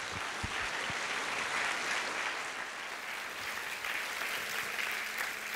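A lecture audience applauding steadily to welcome a speaker.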